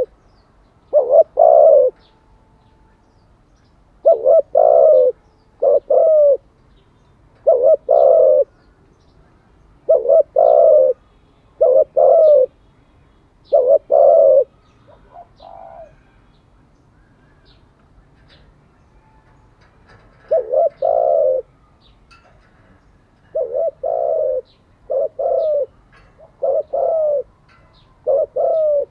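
Spotted dove cooing over and over in short coo phrases about every one to two seconds, with a pause of about five seconds midway before it starts again. This is a male decoy dove's territorial cooing, used to train other doves.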